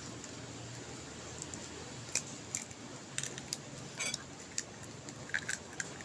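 An egg being cracked and its shell pulled apart over a ceramic bowl of oats: a scatter of sharp clicks and light taps starting about two seconds in, one near the middle a little longer and rattly, over a faint low hum.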